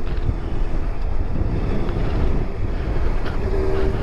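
Wind rushing over a motorcycle helmet microphone at steady highway speed, with the Honda CBR650F's inline-four engine and tyre noise running underneath.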